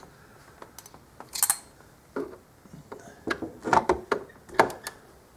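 Plastic dash trim and small parts being handled and pried at: scattered clicks and knocks, a short scrape about one and a half seconds in, and a run of louder knocks near the end.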